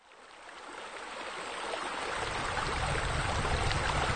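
A steady rushing, hissing noise that fades in from silence over the first two seconds and then holds.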